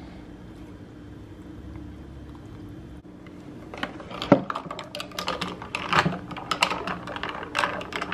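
A stainless-steel straw stirring ice cubes in a glass tumbler of drink: after a few seconds of low room hum, a quick irregular run of clinks and taps starts about four seconds in and keeps going.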